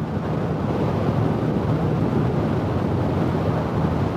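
Steady wind noise on a microphone stuffed into a motorcycle helmet's cheek pad at highway speed, over a low, even drone of engine and road.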